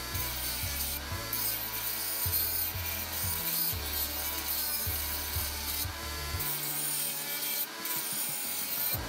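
Flex-shaft rotary tool grinding a groove into the cast aluminum of a carburetor, a rasping grind with a motor whine that wavers as the bit bites. A stepping bass line of background music plays underneath.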